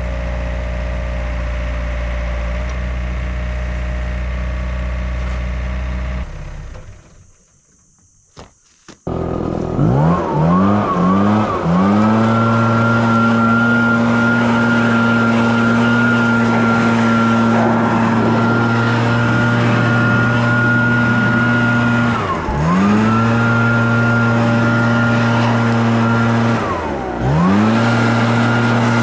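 An engine runs steadily, then cuts off for a couple of seconds of near silence with two faint clicks. An engine then revs up in a few quick rises and runs steadily at high speed with a whine above it, dropping off and picking back up twice near the end.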